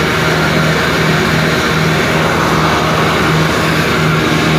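Loud, steady running of an engine or machine, with a low hum that pulses about twice a second.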